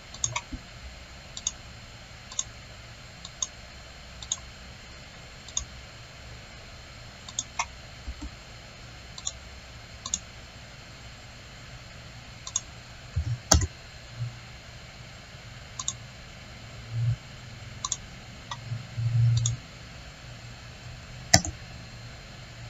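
Computer mouse clicking at irregular intervals, about two dozen light clicks and two louder ones, over a steady low hum.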